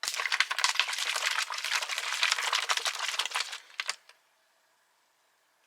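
A utensil stirring food in a ration pouch: a fast run of scraping clicks for about four seconds, then it stops.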